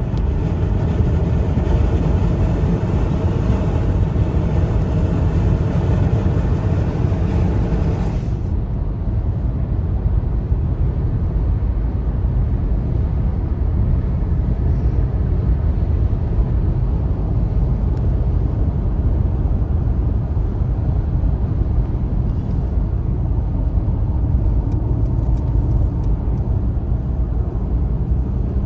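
Steady road noise inside a car's cabin at motorway speed: low tyre and engine rumble, with a brighter hiss on top that drops away abruptly about eight seconds in.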